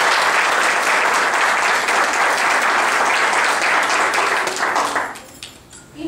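Audience applauding loudly and steadily, dying away about five seconds in.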